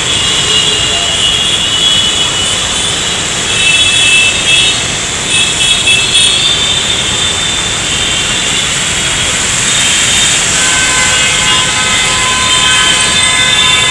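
Busy city road traffic: a steady, loud noise of passing engines and tyres, with high steady tones coming and going over it.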